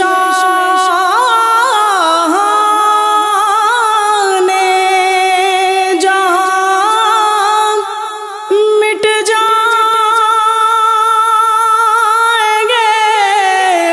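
Unaccompanied vocal interlude of a naat: long, wavering wordless notes held and gliding from one to the next, with no instruments.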